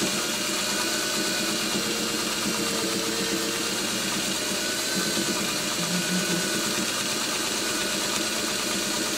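Domestic sewing machine running steadily, stitching through a quilt during free-motion quilting.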